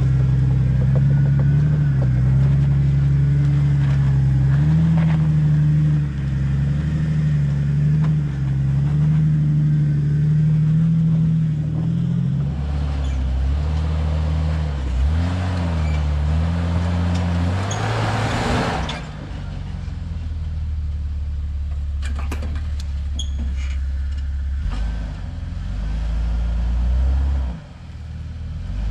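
Jeep Wrangler engine running at low revs on the trail, its pitch wavering a little with the throttle. About halfway through, a hissing rush of noise swells for several seconds. Later come a few sharp clicks over a lower, steadier engine drone.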